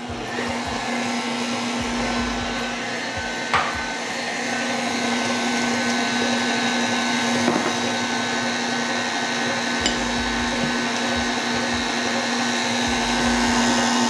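KitchenAid stand mixer running steadily with its paddle beater blending pumpkin purée and melted butter in a stainless steel bowl: a constant motor hum and whir, with a few light ticks.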